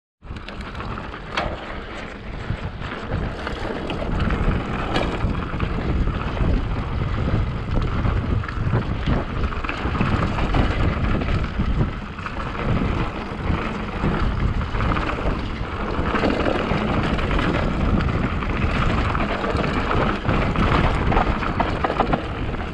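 Hardtail mountain bike being ridden on a trail: steady tyre rumble and scattered rattles and clicks from the bike, with wind buffeting the microphone.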